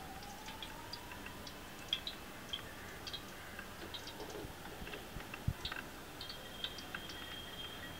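Light clicks and taps of a plastic spoon against small plastic containers as they are handled, with one duller knock about five and a half seconds in as a container is set down on the counter.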